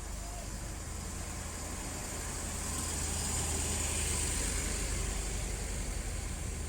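Large bus engine running with a steady low rumble, with a broad rushing noise that swells to a peak about four seconds in and then eases slightly.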